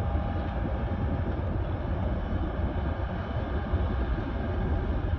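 Steady low rumble of a catamaran under power, with wind buffeting the microphone.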